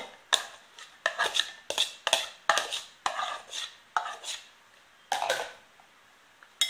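A metal spoon scraping and knocking against bowls as chopped onion is tipped out of a plastic bowl into a glass bowl of diced cucumber. It makes a run of short scrapes and knocks, about two or three a second, which stop about a second before the end, and a single click comes at the very end.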